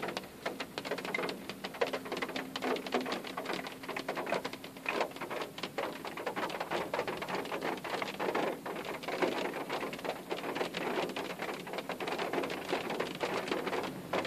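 Rain falling on a car's roof and windows, heard from inside the car: a dense, irregular patter of drop impacts.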